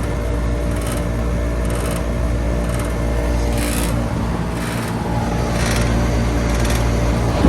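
1998 Comfortmaker AG Series central air conditioner's outdoor unit running steadily, its compressor humming under the condenser fan. The unit is running with high head pressure, and its compressor is on its last legs.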